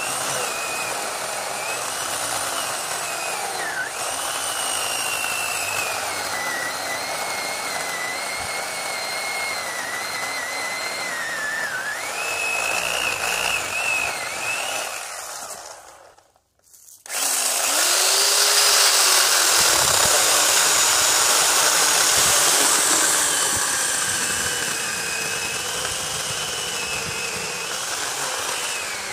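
Hyper Tough 14-inch electric chainsaw cutting through a dead but still solid pine log, its motor whine sagging and recovering in pitch under load. A little past halfway the trigger is released and the saw stops for a moment, then it spins back up and cuts on, louder.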